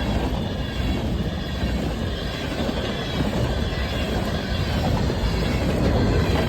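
Train passing close by, a steady rumble of wheels on rails.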